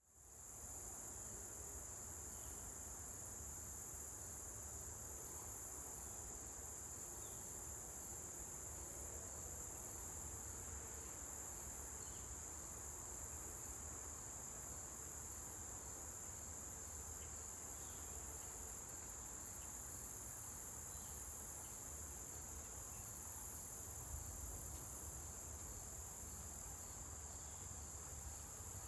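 Steady high-pitched chorus of insects, fading in from silence at the very start, over a low rumble.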